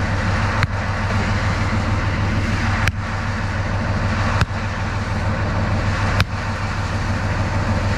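A diesel engine idling steadily under a sharp metallic strike every one and a half to two seconds, like a hammer or maul driving fastenings into the track during the rail repair.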